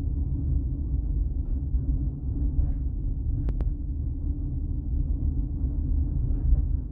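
Steady low rumble of a vehicle in motion, with two faint ticks about three and a half seconds in.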